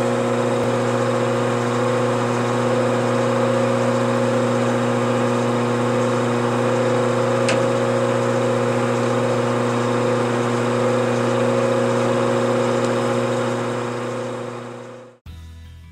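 Metal lathe running steadily with its chuck spinning, a steady motor and gear-train hum, during a single-point thread-chasing pass on an aluminium fitting. It fades out near the end.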